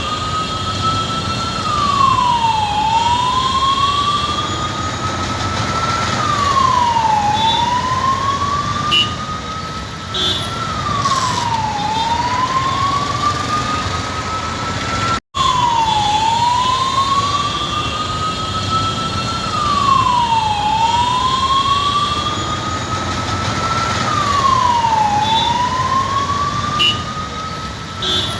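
Ambulance siren wailing in a slow cycle, rising gradually in pitch and falling back quickly, about every four and a half seconds, over low traffic noise. The sound cuts out for an instant about halfway through.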